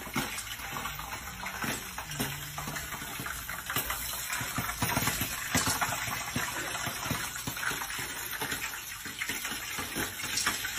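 Popcorn popping in a lidded pot on a stovetop: a steady sizzle of hot oil with many irregular pops.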